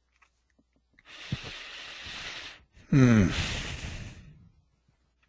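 A man draws a long breath in, then lets out an audible sigh about three seconds in, his voice sliding down in pitch as it fades.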